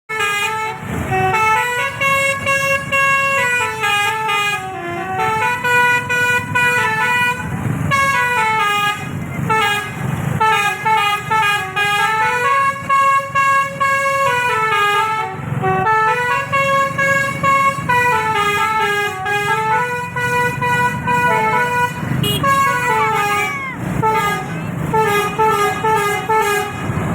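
A bus's basuri horn, the multi-note 'telolet' air horn, playing a melody. Held notes step up and down in phrases that repeat over and over, with a low engine and traffic rumble underneath.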